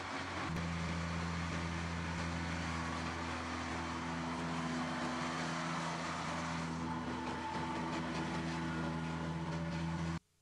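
Case IH Magnum tractor's diesel engine running with a steady drone that cuts off suddenly near the end.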